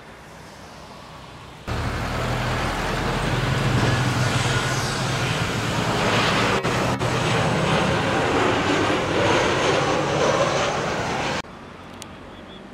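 Lion Air Boeing 737-800 jetliner passing low overhead: its CFM56-7B engines give a loud rushing noise with a low hum and slowly sweeping tones. The sound starts suddenly about two seconds in and cuts off suddenly near the end, leaving faint distant airport noise.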